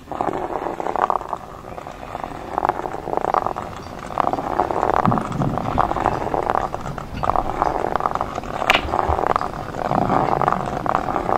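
Abstract experimental film soundtrack: a dense, rapidly fluttering, crackling texture. It comes in suddenly and carries on without a break.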